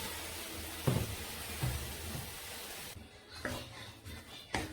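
Food sizzling in a pan as a steady hiss that stops abruptly about three seconds in, with a few knocks of kitchen utensils against the pot.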